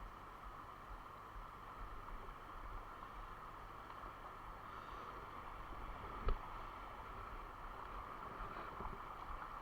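Mountain stream water rushing steadily, with a single sharp knock about six seconds in.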